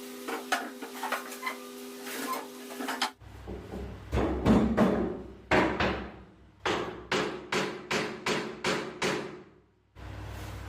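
Hammer blows on wood, a run of about a dozen strikes at roughly two a second, following a few seconds of light clicks and knocks over a steady hum.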